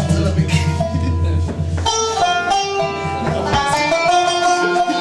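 Qanun plucked with finger plectra, playing a run of bright, ringing notes over the band's accompaniment. The low pulsing accompaniment drops away about two seconds in, leaving the plucked notes clearer.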